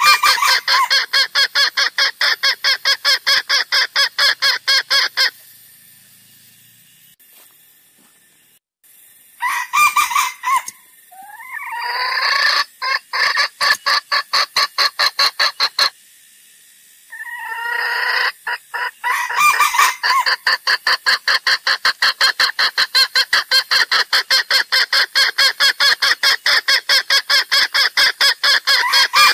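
Junglefowl lure recording: rapid, evenly repeated clucking calls about five a second, breaking off for a pause and a few longer, gliding pitched calls near the middle before the rapid clucking resumes. It is a call played to lure wild junglefowl for trapping.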